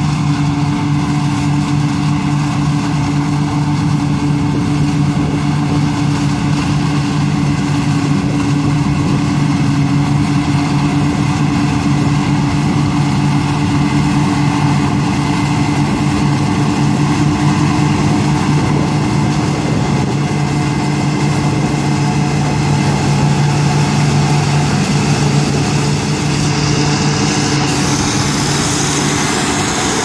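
Engine of a self-propelled celery harvester, a converted bean puller, running steadily under load as it works along the row. The sound grows noisier near the end as the machine comes close.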